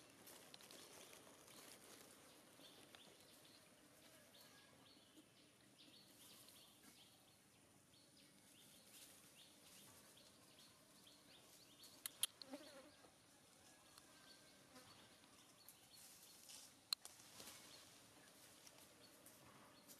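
Faint outdoor ambience with insects buzzing, broken by a few sharp clicks about twelve and seventeen seconds in.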